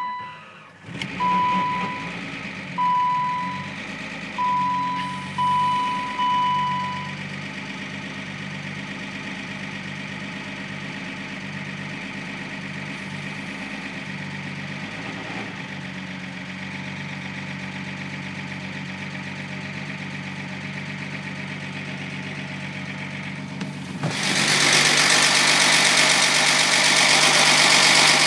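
BMW M20B25 2.5-litre straight-six idling with the seriously awful mechanical noise whose cause is not yet known, which the owner suspects lies in the valvetrain or timing. A warning chime sounds about six times in the first several seconds, and near the end the noise turns much louder and harsher.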